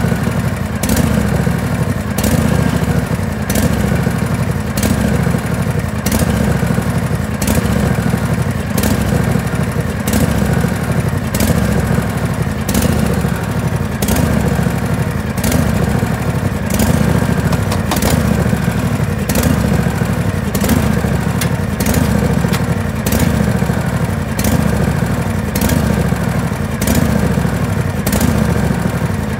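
Riding lawn tractor's engine running steadily at idle, with a sharp click repeating a little more than once a second.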